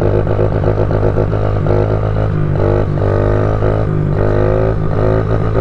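Honda CRF50 pit bike's small single-cylinder four-stroke engine running under way, a steady low drone with a higher note that surges in and out as the throttle is worked.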